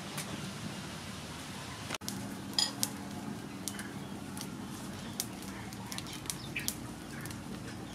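Hands plucking fresh mint leaves from their stems, giving several short, sharp clicks and snaps, over a steady low hum.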